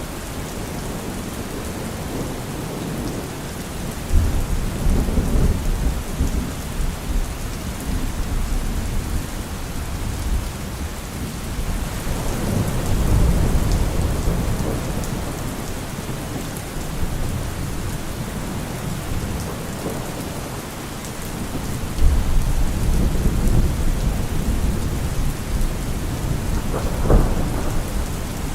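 Steady rain with low rumbles of thunder rolling in three times: a few seconds in, near the middle and about three quarters of the way through.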